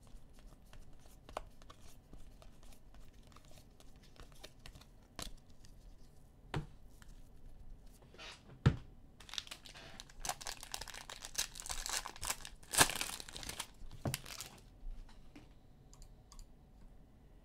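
Trading cards flicked and set down with light clicks, then a sharp knock, then a football card pack's foil wrapper torn open with about five seconds of crinkling and tearing.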